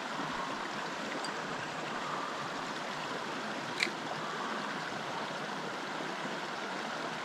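Small mountain creek running over rocks: a steady rush of flowing water, with one sharp click about halfway through.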